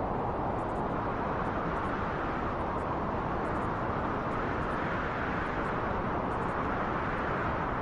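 Steady rushing wind that swells gently and eases again, with no gusts or breaks.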